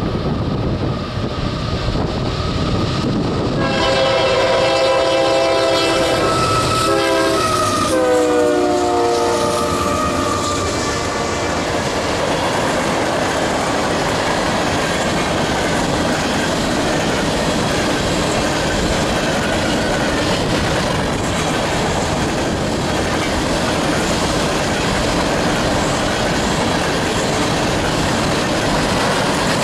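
A GE diesel locomotive's horn sounds one long blast a few seconds in, its pitch dropping about 8 seconds in as the locomotive passes. It is followed by the steady rolling noise and clickety-clack of a grain train's covered hopper cars going by.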